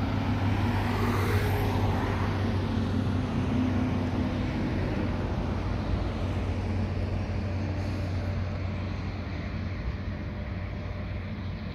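Motor vehicle running at low speed: a steady low engine hum over road and traffic noise, easing off a little near the end.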